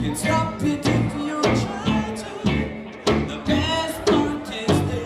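Live reggae band playing with a steady beat of about two strong hits a second from the drum kit, under electric bass and guitar, with a man singing into a microphone over it.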